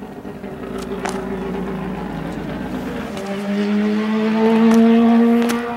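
Mazda 787B race car's R26B four-rotor rotary engine running at speed on track, its exhaust note growing louder as the car comes closer. The pitch sags, then drops about three seconds in and climbs again to the loudest point near the end.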